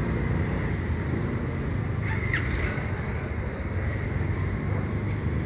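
Steady low rumble of street traffic with wind buffeting the microphone. A brief high squeak comes about two seconds in.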